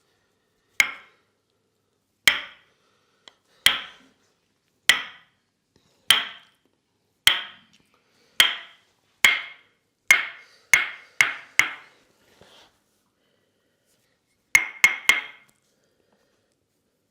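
Tok sen massage: a wooden mallet tapping a wooden wedge held against the body, giving a series of sharp wooden knocks. About a dozen come roughly a second apart, getting quicker towards the middle, then a quick run of three after a short pause.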